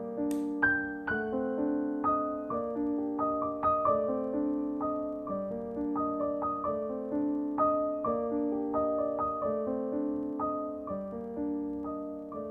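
Background piano music, single notes played one after another in slow broken chords, with a brief click just after the start.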